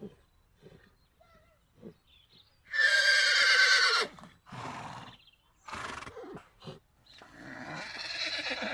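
Horse whinnying, the built-in horse sound of a 3D animal model: a loud, quavering neigh about three seconds in, then a few shorter calls and a longer one building near the end.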